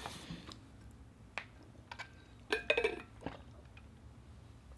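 Faint clicks and light knocks of an insulated water bottle with a straw lid being picked up and handled for a drink, with a brief busier handling or sipping sound about two and a half seconds in.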